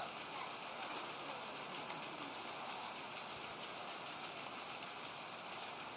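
Backyard sprinkler spraying water, a steady even hiss with no breaks.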